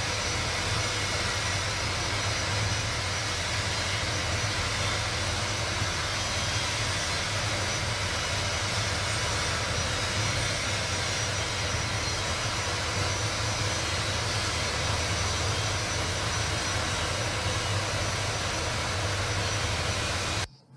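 Artificial rain rig spraying water over test insulators in a high-voltage laboratory: a steady hiss of spray over a low, even hum, cutting off suddenly near the end.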